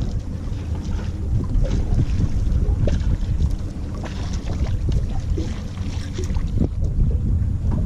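Wind buffeting the microphone on a boat at sea, an uneven low rumble with scattered knocks and splashes.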